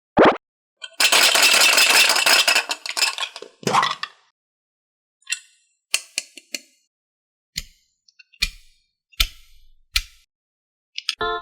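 Slime being handled and mixed by hand: about two seconds of dense crackling and squelching pops, then a run of separate sticky clicks and pops spaced about a second apart.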